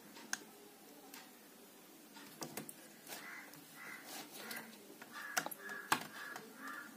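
Sparse light clicks and taps from handling a small circuit board and its capacitor as the part is fitted and a soldering iron is brought to the board. From about halfway, a crow caws repeatedly and faintly in the background.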